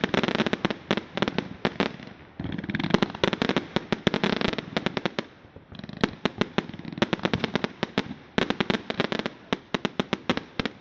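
Fireworks display: rapid volleys of sharp bangs and crackling reports. They come in dense clusters that ease off briefly about two seconds in and again about halfway through.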